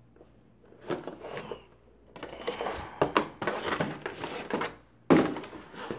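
Cardboard Monopoly game box being handled and opened: rustling and sliding scrapes in several bursts, then a sharp thump about five seconds in.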